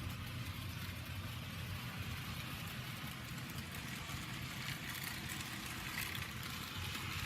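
Electric model train locomotive running along the track: a steady motor hum with the rolling rumble and hiss of wheels on the rails.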